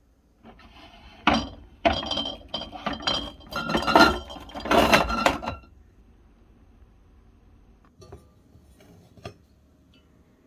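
Hard kitchen items clinking and clattering against each other in a busy run lasting about five seconds, followed by two lone clicks near the end.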